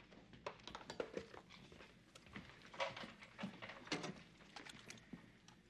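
Quiet, scattered clicks and knocks of equipment being handled and people moving about in a small room, over a low background hum.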